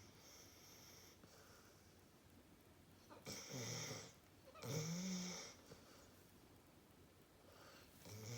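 Staffordshire bull terrier snoring in deep sleep. Two louder snores come about three and four and a half seconds in, with quieter breaths between them, and another snore begins near the end.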